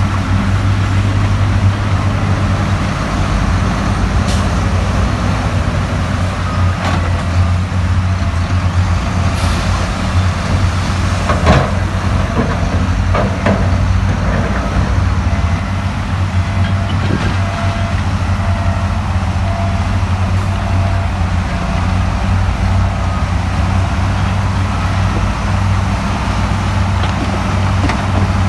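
Heavy diesel engine of earthmoving machinery running steadily, with a few sharp knocks and clanks a little before the middle.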